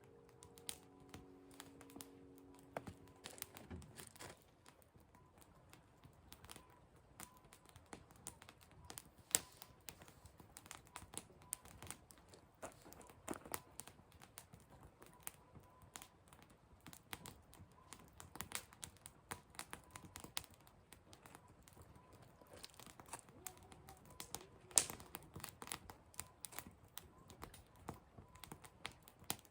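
Firewood fire crackling, with irregular sharp pops and snaps; the two loudest pops come about nine seconds in and near the end.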